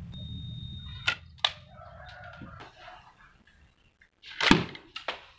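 A homemade wooden rubber-band slingshot gun is fired and bursts a balloon: a loud, sharp crack about four and a half seconds in, followed by a smaller snap. Earlier, a rooster crows briefly.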